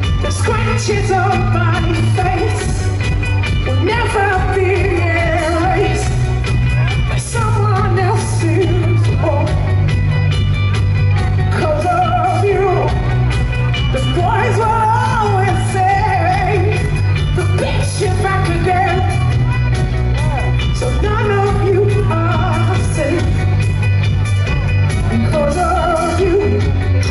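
Rock band playing live: a female lead vocal sung over bass guitar and drums, with a heavy steady bass.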